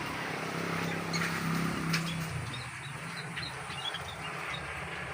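Small aviary birds chirping in short high notes over a steady engine hum, whose pitch shifts lower about two seconds in.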